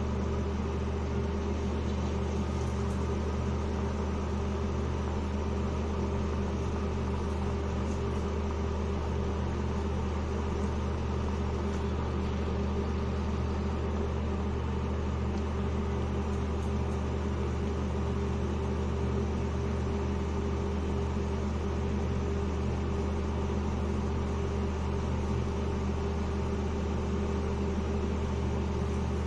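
Tal pitha batter balls deep-frying in mustard oil, a steady even sizzle, under a steady low hum that is the loudest part of the sound.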